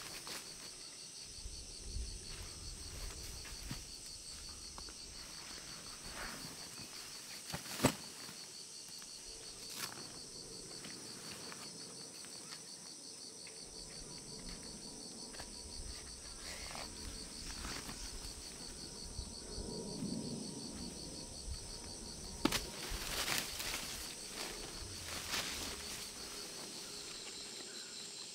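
Steady high-pitched chorus of forest insects, several voices at different pitches, one pulsing rapidly. Scattered snaps and rustles in the undergrowth break through it now and then, the sharpest about eight seconds in and twice more past the twenty-second mark.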